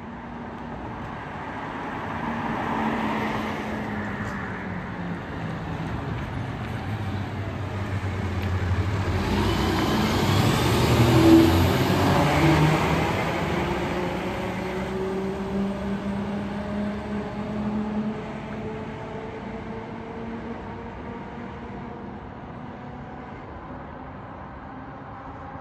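A fire engine drives past close by: its diesel engine and tyre noise swell to a peak about eleven seconds in, then fade as it pulls away. A car passes a few seconds earlier.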